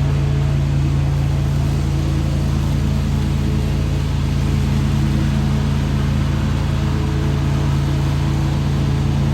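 Riding lawn mower engine running at a steady, even drone while it mulches fallen leaves.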